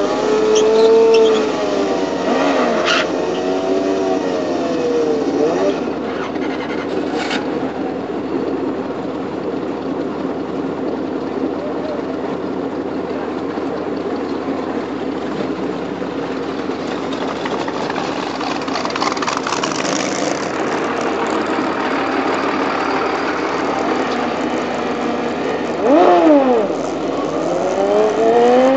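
Two inline-four sport bikes, a Suzuki Hayabusa and a Kawasaki ZX-14 with a Muzzy exhaust, being revved up and down, then running steadily while staged. Near the end the engine note climbs sharply and gets louder, as at the launch of a drag run.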